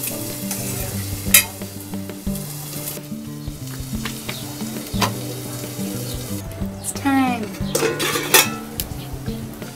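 Cooking oil sizzling in a steel wok on a wood-fired mud stove, with scattered clicks of metal utensils. A simple synth melody plays quietly underneath.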